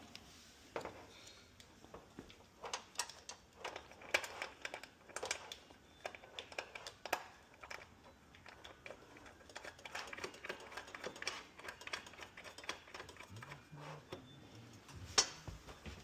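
Irregular light clicks, taps and knocks of hand work with tools and TV-mounting hardware, with one sharper knock near the end.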